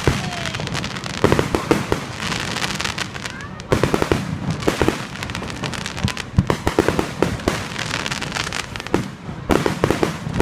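Fireworks going off in rapid volleys of crackling bangs, with fresh clusters starting about a second in, just under four seconds in, and near the end.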